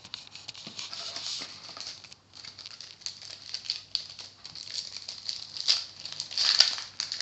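Crinkling and rustling of a card packet wrapper and the trading cards being handled, many small papery crackles, with a louder crinkle about six and a half seconds in.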